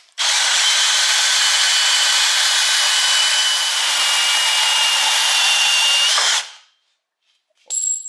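Bandsaw cutting through a piece of heavy-wall steel tubing: a loud, steady cutting noise with a thin high whine, starting abruptly and stopping after about six seconds. Near the end comes a brief high metallic ring.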